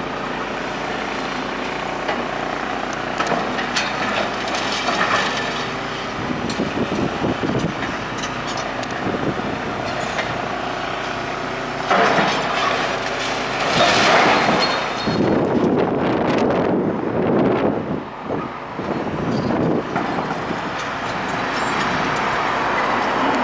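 Heavy demolition machinery running steadily, with clattering, knocking and scraping of demolition work that grows loudest about halfway through.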